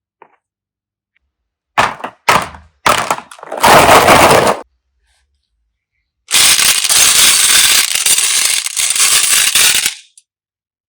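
Crackling handling noise from slime play. There are a few short crackly bursts, then a louder one about a second long, and after a pause about four seconds of steady crackling that stops suddenly.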